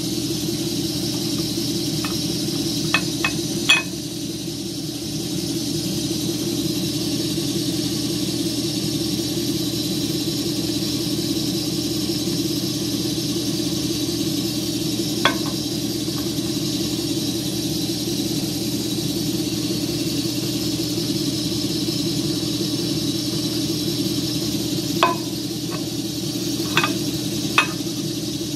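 A steady background hum with a few sharp metallic clinks: a cluster a few seconds in, one about midway, and several near the end, as a machined steel driveshaft flange and a cast yoke are picked up and set down on a steel table.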